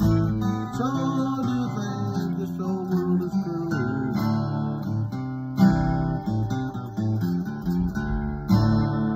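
Steel-string acoustic guitar strumming chords that ring between strokes, with hard strums about five and a half and eight and a half seconds in.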